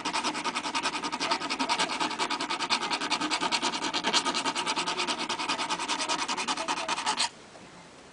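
Fast, even scraping strokes of a hand finishing tool over the metal edge of an AR-15 upper receiver's ejection port, smoothing the enlarged opening; it stops abruptly about seven seconds in.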